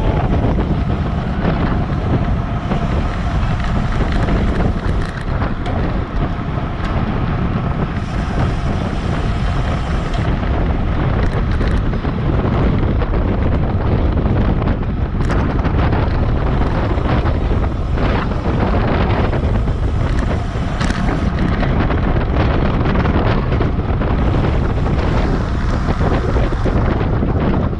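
Wind rushing over a bike-mounted action camera's microphone as a road bicycle races at close to 30 mph, a steady loud rush heaviest in the low end, with a few brief clicks.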